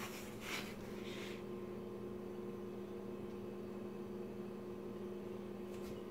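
Steady electrical hum from a household appliance, with a brief rustle in the first second or so.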